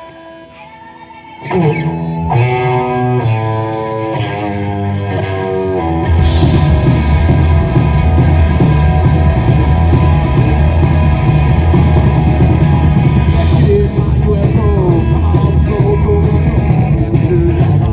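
A metal band playing live through amplifiers: an electric guitar starts alone about a second and a half in with a riff of held, ringing notes, then about six seconds in the drums and bass come in and the full band plays loud and heavy.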